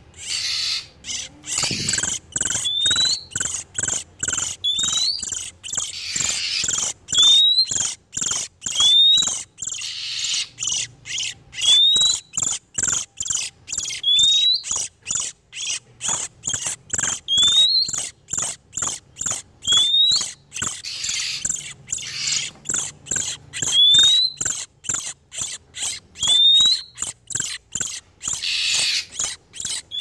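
Oriental magpie-robins calling in breeding condition: dense, rapid, harsh chattering, with a short upward-gliding whistled note every two to three seconds. This is a lure recording of males and females, used to draw in wild magpie-robins.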